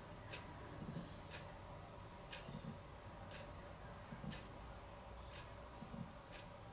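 Faint ticking of a clock, about one sharp tick a second, over a low steady hum.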